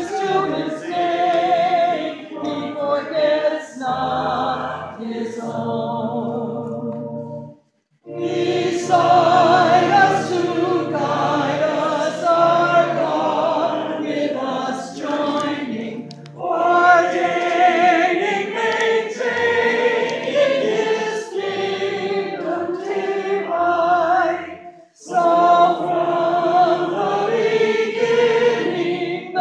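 Church congregation singing a hymn together, a mix of men's and women's voices, with short breaks between phrases about eight seconds in and again about twenty-five seconds in.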